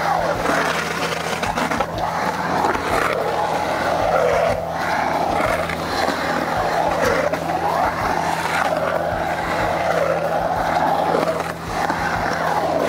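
Skateboard wheels rolling on the concrete of a skate bowl: a continuous rolling rumble that rises and falls in pitch again and again.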